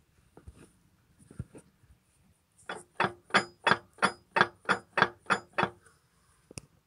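About ten evenly spaced metallic taps, roughly three a second, each ringing briefly: a metal tool striking the gears or cast housing inside a Case 5150 tractor's opened gearbox, where a gear has a problem.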